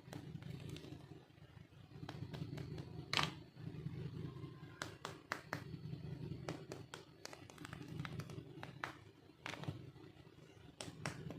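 Small plastic toy pieces being handled, clicking and tapping irregularly, with one sharper click about three seconds in, over a steady low hum.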